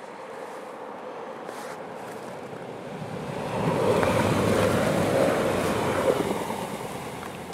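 A Vogtlandbahn diesel multiple-unit train passing close by. Its rumbling noise swells about three seconds in, is loudest for a couple of seconds as the cars go past, then fades near the end.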